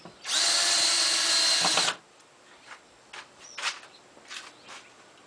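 Drill on slow speed with a long number 2 driver bit, driving a number 8 sheet metal screw into a pocket hole in the wood frame. It runs steadily for about a second and a half, then winds down and stops; a few faint clicks follow.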